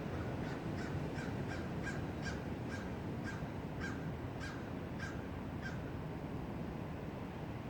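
Steady wind blowing through trees. Over it, a bird gives a series of short calls, about three a second at first, then spacing out and stopping about three-quarters of the way through.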